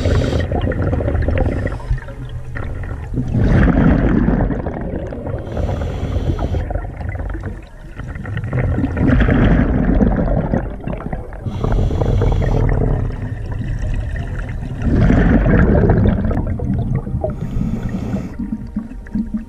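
Scuba diver breathing underwater through a regulator: a short hiss on each inhale, then a louder bubbling rush as exhaled air vents through the exhaust. About three full breaths, one every five to six seconds.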